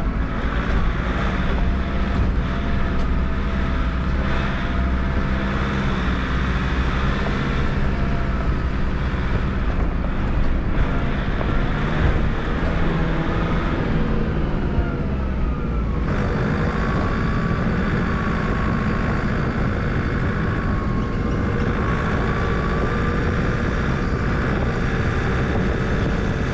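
A four-wheel-drive vehicle's engine and road noise while driving, a steady drone with a slight shift in pitch, changing abruptly about two-thirds of the way through.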